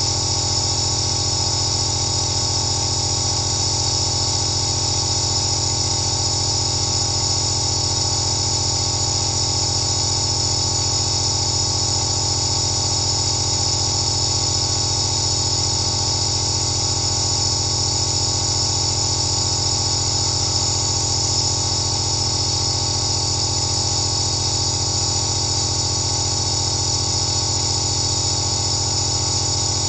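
Home compressor nebulizer running steadily through its face mask: a constant low motor hum under a high hiss of air and medicine mist.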